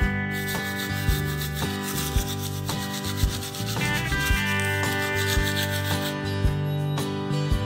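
Manual toothbrush scrubbing teeth in rapid back-and-forth strokes, over background music.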